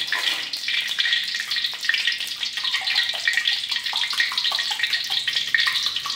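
Hot cooking oil sizzling and crackling in an aluminium wok, a steady hiss full of small pops as the oil heats for frying.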